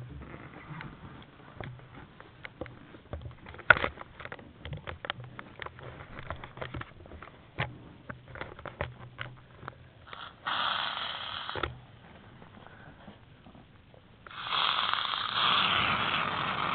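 Aerosol shaving cream can spraying foam: a short hiss about ten seconds in, then a longer, louder hiss from about fourteen seconds on. Before that, scattered clicks and rustles of handling.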